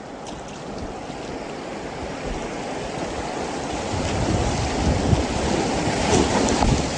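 Rushing water of a swollen river, growing steadily louder, with low rumbles of wind on the microphone toward the end.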